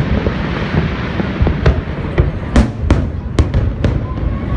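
Fireworks display: aerial shells bursting, several sharp bangs in quick succession over a constant low rumble of distant explosions. A steady whistling tone begins near the end.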